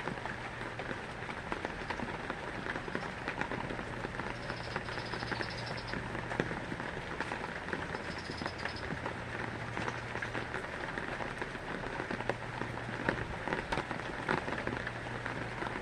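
Heavy rain falling on a surface, a dense steady patter with many small sharp drops. A faint high trill comes through twice in the middle.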